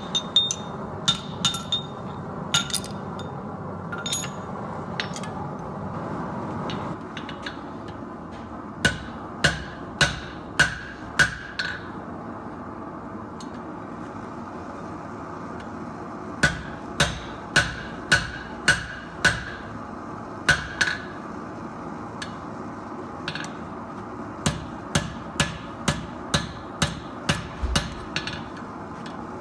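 Blacksmith's hand hammer striking steel on an anvil in runs of quick blows, about two a second, with pauses between the runs.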